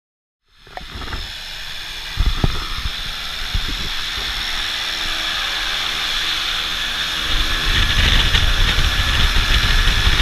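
Pilatus Porter turboprop running on the ground with its propeller turning: a steady high whine over a low rumble, with a few knocks about two seconds in. The low rumble grows louder about seven seconds in.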